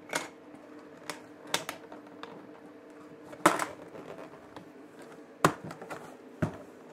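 Plastic laptop display bezel being pressed onto the lid and snapping into its clips: a string of sharp plastic clicks and snaps a second or so apart, the loudest about three and a half seconds in, over a faint steady hum.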